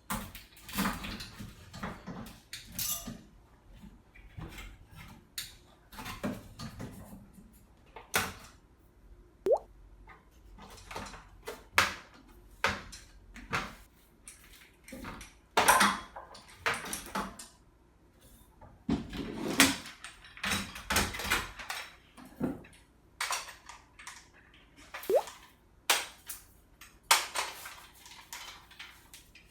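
Parts of a gas pressure washer being handled and fitted together by hand: irregular clicks, knocks and clattering of plastic and metal pieces, with several sharper knocks.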